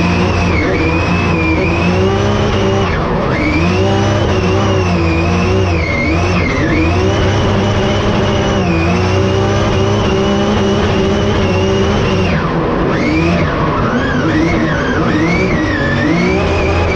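Drift car's engine held at high revs, heard from inside the cockpit, its pitch dropping sharply about three, six and twelve seconds in and climbing straight back. Tyres squealing under the drift.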